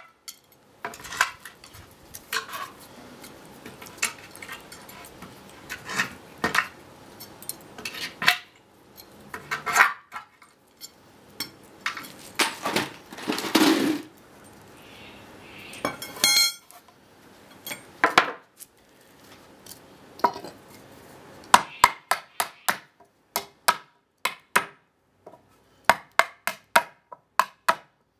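Nails being pulled from pallet boards with a steel pry bar and a claw hammer: metal-on-metal taps and clinks as the bar is driven under nail heads, with grinding creaks as the nails are levered out of the wood. About two-thirds of the way in comes a run of quick, sharp hammer blows, several a second.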